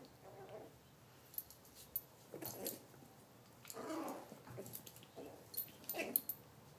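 Miniature pinschers play-fighting, giving short bursts of growling and snarling, about five or six in all, with a few sharp high clicks between them.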